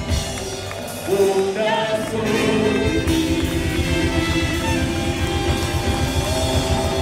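Live band music with a male singer's voice: the drum beat drops out briefly and comes back in about two seconds in, then keeps a steady pulse under the voice and instruments.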